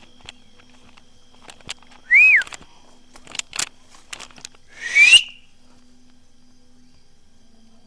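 Two short whistles, the first rising and falling, the second a rising note about five seconds in, with scattered light cracks and snaps from footsteps moving through brush.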